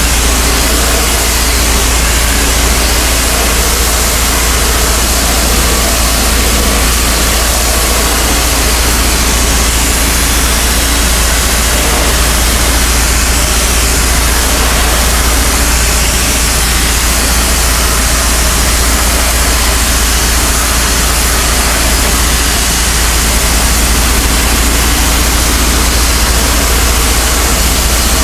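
Pressure washer running steadily: a constant engine drone under the hiss of a high-pressure water jet spraying a fabric awning.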